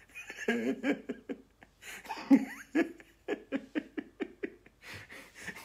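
A man laughing in repeated bursts, with a quick run of short laughs about three seconds in.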